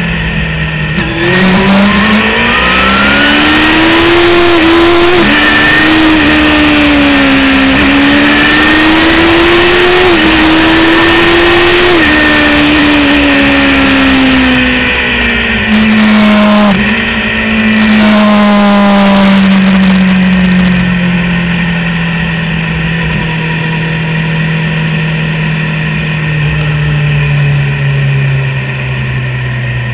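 Suzuki GSX-R sportbike's inline-four engine heard from on the bike: it pulls up through the revs with a few quick dips in pitch at gear changes, then its engine speed falls steadily through the second half as it rolls off. Wind rushes over the microphone throughout.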